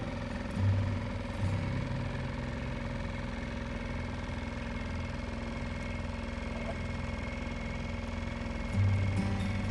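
Small outboard motor on a sailboat running steadily at low, constant speed, with two brief low thumps, about a second in and near the end.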